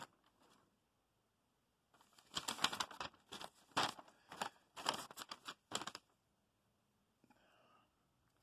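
Crinkling and rustling of something being handled, in a run of quick crackly bursts from about two to six seconds in.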